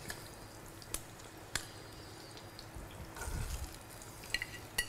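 Metal kitchen tongs clicking a few times against the frying pan and the baking dish as lemon slices are lifted out, over a faint sizzle of butter and oil in the pan, with a short scrape about three seconds in.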